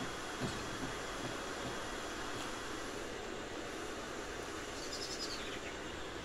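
Steady rushing background noise, with a few footsteps crunching on gravel about five seconds in.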